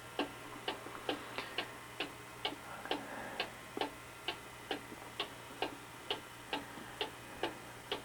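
Weight-driven mechanical cuckoo clock ticking steadily, a little over two ticks a second.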